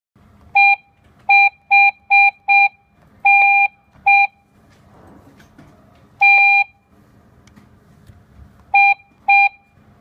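Beeps from a W2 Wi-Fi/GSM alarm control panel as keys on its touch keypad are pressed: five quick beeps, a longer beep about three seconds in, another short one, a longer beep about six seconds in, then two short beeps near the end, all at the same pitch.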